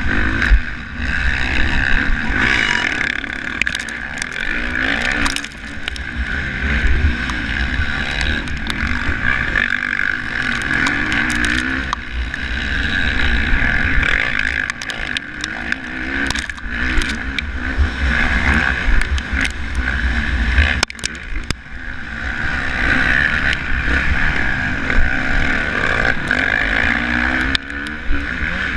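Motocross bike engine at race pace from an onboard camera, revving up and falling off again every second or two as the rider works the throttle through turns and jumps. Wind buffets the microphone, with occasional sharp knocks from bumps and flying dirt.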